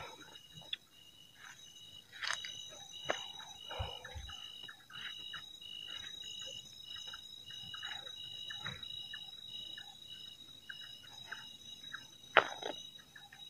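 A night insect chirping in a faint, even high pulse, about two to three chirps a second, with a few sharp knocks of handling noise.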